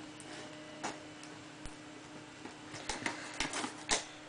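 Packing tape being peeled off a cardboard shipping box and its flaps handled: scattered sharp ticks and crackles, coming closer together in the second half, over a faint steady hum.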